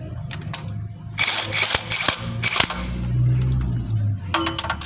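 Sharp metallic cracks and rattling under the engine for about a second and a half as tools work on the oil pan bolts, then a low steady hum lasting just over a second, and a brief ringing metal sound near the end.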